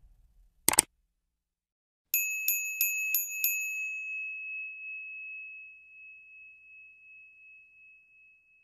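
A small bell rung five times in quick succession, about three strikes a second, its single bright tone ringing on and fading slowly. A brief sharp double click comes just before it, under a second in.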